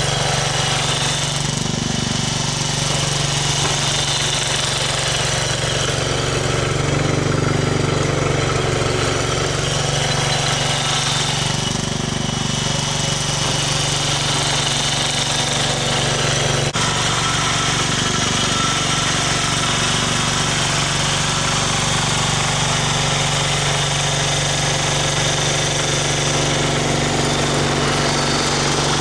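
Small engine of a snow-clearing machine running steadily under load with a rattly note that shifts briefly a few times, plus a single sharp click about 17 seconds in.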